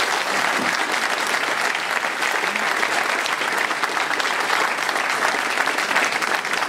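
Audience applauding: steady clapping from a seated room of people.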